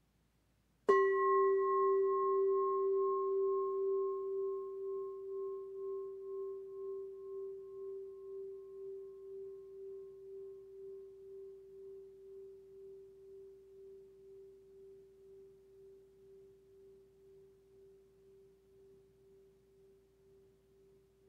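A singing bowl struck once with a wooden mallet about a second in, then ringing with one low tone and a fainter higher one, wavering in loudness as it slowly fades over some twenty seconds. It marks the opening of a meditation.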